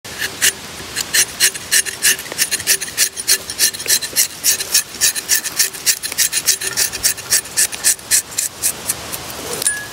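Rubber-tapping knife shaving a thin strip of bark along the tapping cut of a para rubber tree: a quick run of short, crisp scraping strokes, about four a second, that stops just before the end.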